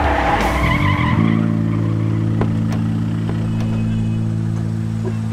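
Car tyres screeching as a vehicle brakes hard to a stop; the screech dies away about a second in. Steady low background music follows.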